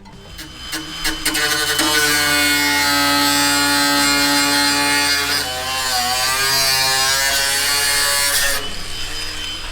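A power tool cutting into a car's rusted body steel: a buzzing motor with a hiss of cutting that starts about a second in and runs steadily. Its pitch wavers and sags for a moment around the middle as it bites, and it stops near the end.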